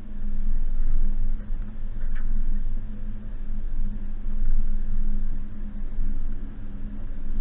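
Suzuki Jimny's engine running steadily as the vehicle drives, with a low rumble and a steady hum underneath.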